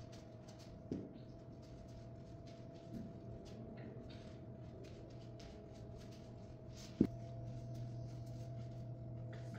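Quiet gym room tone: a steady low hum with a couple of soft thumps and scattered faint ticks. A sharp click comes about seven seconds in, after which the hum is louder.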